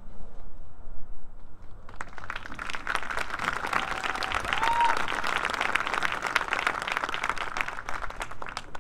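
Crowd of spectators clapping, starting about two seconds in and stopping just before the end, with one short whoop in the middle, as the drum major salutes before the show.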